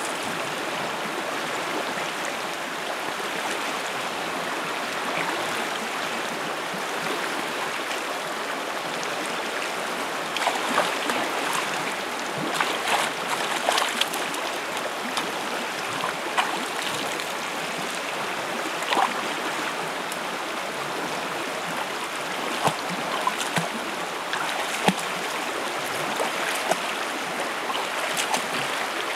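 A shallow, rocky river rushing steadily over stones, with splashes from hands and a foot slapping the water, coming irregularly from about a third of the way in.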